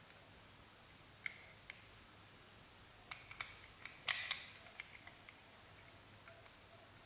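Small clicks and snaps from a toy MAN TGS truck model as its cab is pried off the chassis, with the loudest crackling cluster a little after four seconds in.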